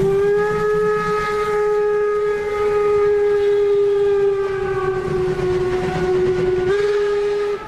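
One long train horn blast from a G-scale model locomotive's sound unit, held about seven seconds, sagging slightly in pitch and then stepping back up before it cuts off.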